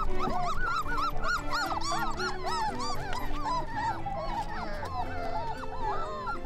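A litter of Weimaraner puppies whining and yipping, many short rising-and-falling cries overlapping, over background music.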